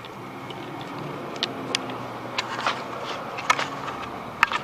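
Scattered sharp clicks and knocks of metal parts being handled as a cooler's condenser is pulled out, over a steady background hum.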